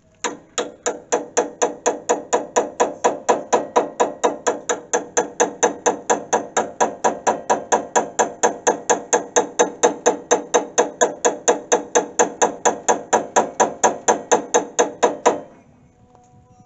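Hammer striking a steel bushing on a Bobcat 873 skid steer's bucket-attachment pivot, in a steady run of about four blows a second with a short metallic ring on each, stopping about a second before the end. The blows are driving the bushing in, and its end is mushrooming so it won't go in flush.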